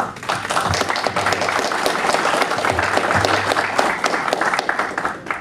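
Audience applauding at the end of a talk, a steady patter of many hands clapping that dies away near the end.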